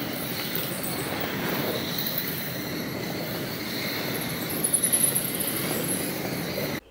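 A large colony of cave bats making a dense, steady rush of wing flutter and squeaking, with high squeaks loudest about five seconds in. It cuts off suddenly near the end.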